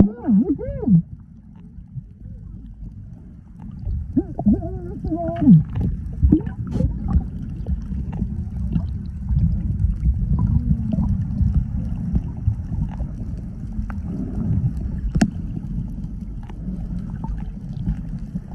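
Muffled sound from a camera held underwater: a low, uneven churning rumble of moving water against the housing. Warbling, muffled voices come through right at the start and again about four to five seconds in, with scattered small clicks later on.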